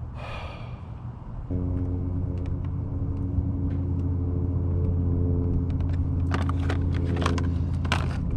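Steady low engine hum of a nearby motor vehicle, starting abruptly about a second and a half in. Scattered clicks and rustling handling noises are heard near the end.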